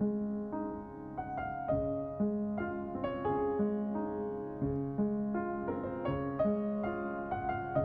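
Background music: a gentle piano melody with notes struck about every half second.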